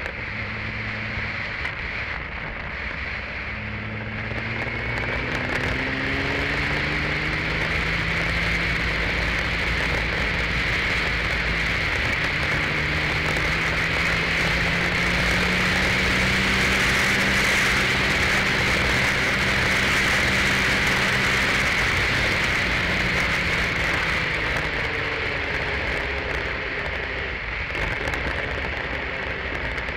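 Open-wheel single-seater race car engine driving hard: its pitch climbs and steps back at several gear changes in the first few seconds, holds high through the middle, then eases off near the end. A steady roar of wind and road noise on the car-mounted microphone runs under it.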